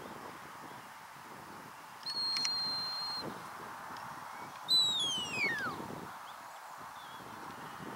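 Herding handler's whistle commands to a sheepdog. A long, steady, high whistle is followed about a second and a half later by a whistle that slides down in pitch. Both sound over a steady hiss of wind.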